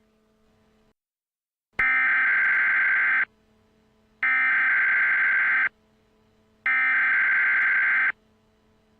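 Emergency Alert System SAME header: three identical bursts of screechy digital data tones, each about a second and a half long and about a second apart. They mark the start of a new emergency alert. A faint low hum runs underneath.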